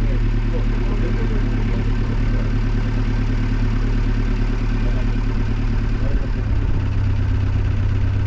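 Boat taxi's engine running steadily at low revs. Its note drops slightly about six and a half seconds in.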